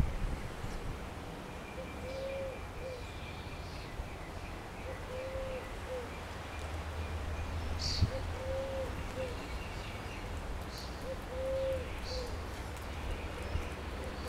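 A dove cooing: a short arched low coo, followed by a shorter one, repeated about every three seconds, with faint high chirps and a thin trill from small songbirds.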